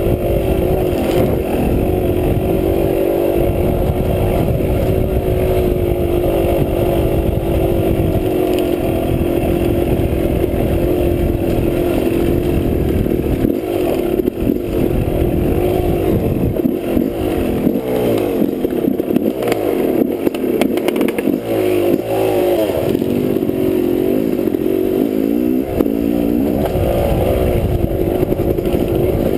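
Dirt bike engine running under load on a rocky trail, its pitch fairly steady at first, then rising and falling repeatedly in the second half as the throttle is worked over the rough ground.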